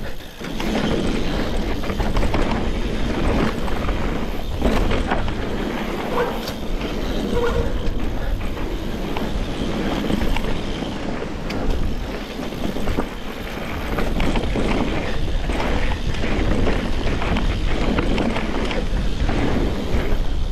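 Mountain bike descending a rough, rocky trail: tyres on dirt and rock, the bike rattling with constant short knocks over the bumps, and wind on the microphone.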